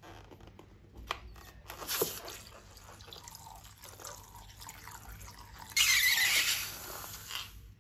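Liquid slime mixture being poured and squeezed into a bowl: soft drips and small wet squelches, then a louder pour about six seconds in that fades over about a second and a half.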